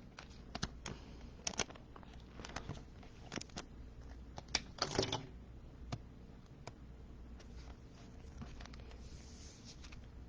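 Trading cards and plastic card sleeves being handled: light clicks and rustles, with a longer sliding rustle about five seconds in as a card goes into a sleeve and top loader.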